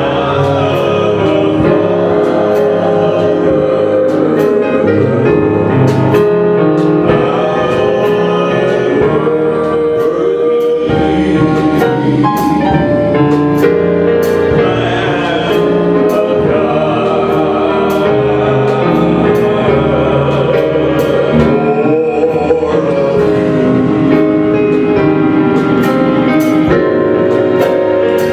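Gospel worship music: a group of singers with band accompaniment and a steady percussion beat.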